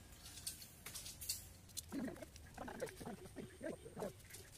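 Scattered light clicks and rattles of welded wire mesh being unrolled and handled on the ground, with faint voices talking in the second half.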